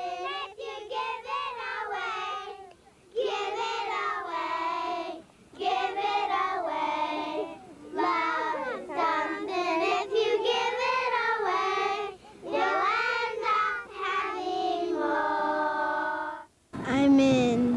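A group of young children singing a song together in phrases with short breaks, ending on a long held note.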